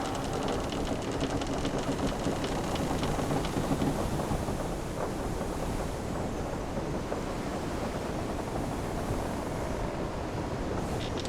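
Ocean waves and wind around a wooden sailing ship at sea, a steady rushing wash of water. In the first few seconds a rapid clatter of small ticks and creaks from the ship rides on top, then it settles to the plain wash.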